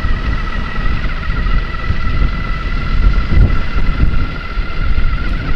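Wind buffeting the microphone on a moving e-bike, a loud uneven rumble, with a steady high whine running alongside.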